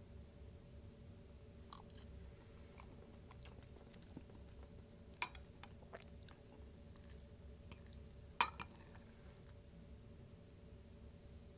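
Close-miked chewing of a chicken bowl: soft wet mouth sounds broken by a few sharp clicks and crunches, the loudest about two-thirds of the way through.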